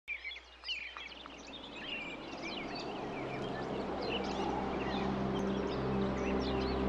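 Birdsong, many short chirps and trills, with a low sustained ambient music drone fading in and growing steadily louder from about three seconds in.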